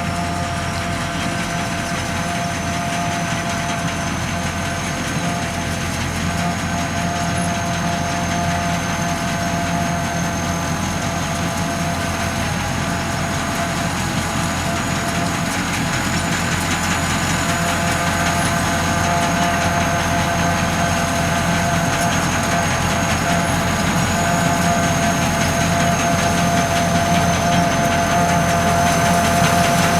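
SAKPATTANA SS-200 mini combine harvester running steadily, its engine and threshing machinery giving a constant hum with a thin high whine, growing slightly louder near the end.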